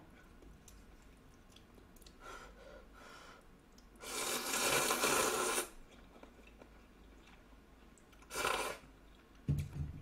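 A person slurping ramen noodles and broth from a bowl held to the lips: faint slurps early on, a long slurp about four seconds in lasting over a second, and a shorter one near the end, followed by a brief low sound.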